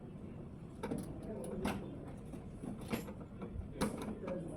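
A few sharp knocks and clicks, irregularly spaced, over faint background voices.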